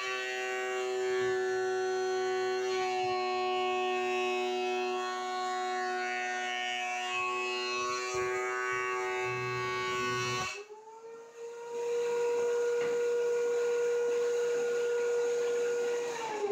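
DeWalt DW735 thickness planer with its old straight high-speed steel blades planing a board: a steady, really loud whine. The whine drops to a higher, steady pitch once the board clears the cutters about ten seconds in, and it starts to fall away near the end as the motor winds down.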